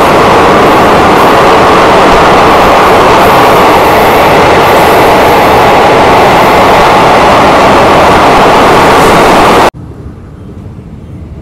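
DMU train running at speed, a very loud, steady rushing rumble heard from aboard. About ten seconds in it cuts off abruptly to a much quieter, steady train noise.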